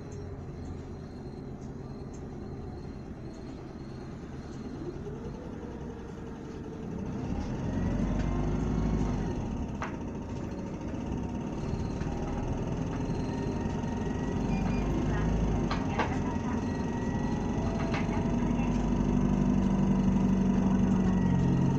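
Running sound from inside a 2019 Isuzu Erga city bus. Its diesel engine drones quietly at first. About seven seconds in, the engine note rises and grows louder as the bus accelerates, with a few sharp clicks and knocks from the body.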